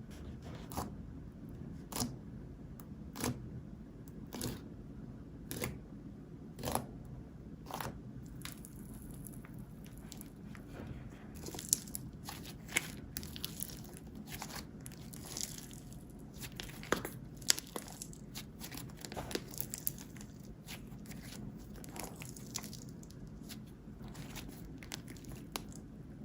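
Slime being squeezed and poked by hand, making sharp pops about once a second at first, then a denser run of crackling pops.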